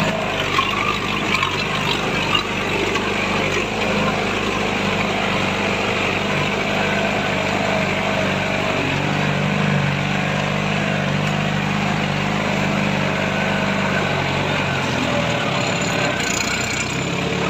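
Off-road vehicle engine running steadily at low revs as it crawls down a rough dirt track.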